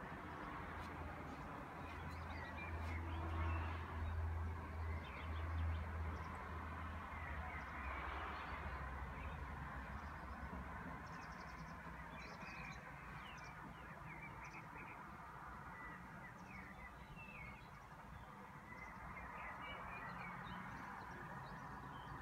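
Birds chirping and calling in short scattered notes over a steady outdoor hiss, with a low drone under the first half that fades out.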